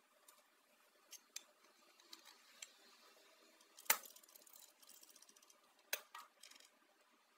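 Small objects being handled: scattered light clicks and taps, two sharper clicks about four and six seconds in, and a quick rattling run of tiny clicks between them.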